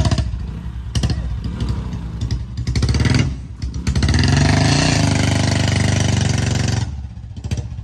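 Single-cylinder motorcycle engines, a Royal Enfield Bullet and a Hero Splendor, running with a steady pulsing beat. One is revved hard and held up for about three seconds in the middle, then drops back near the end.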